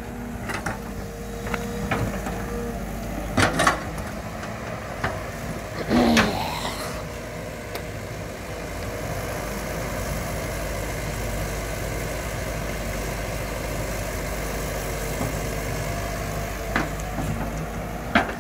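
Caterpillar E120B hydraulic excavator's diesel engine running steadily as it works, with a few sharp knocks in the first seven seconds.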